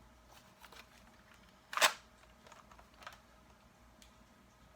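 Plastic clicks from a Nerf blaster being worked: a few faint clicks and one sharp, loud snap a little under two seconds in.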